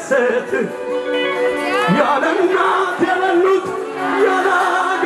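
A man singing live into a microphone over amplified music, with held instrument notes under the voice.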